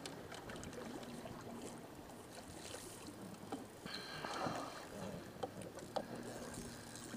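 Boat's motor running steadily at low speed, a low even drone, with scattered faint clicks and water sounds as a trout is netted beside the boat.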